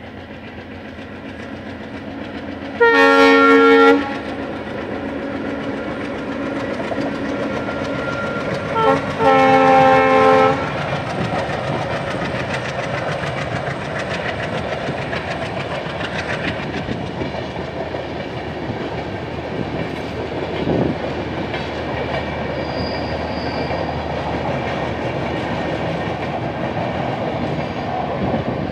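Diesel locomotive horn sounding one blast about a second long, then a short toot and a longer blast about nine seconds in. After that comes the steady rumble and wheel clatter of a passenger train's coaches running past.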